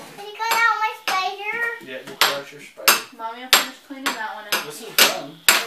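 A series of sharp clicks and knocks, about eight in all at uneven intervals of roughly half a second. A voice vocalizes without words during the first two seconds.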